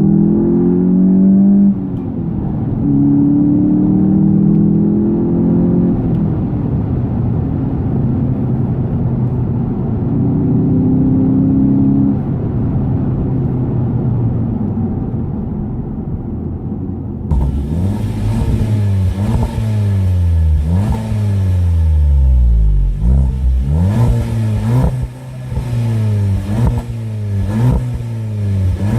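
Volkswagen Golf GTI's 2.0-litre turbocharged four-cylinder engine accelerating, muffled at first, its pitch climbing and then dropping back three times as it shifts up through the gears. About two-thirds of the way in the sound suddenly turns clearer, and the revs then rise and fall quickly, about once a second.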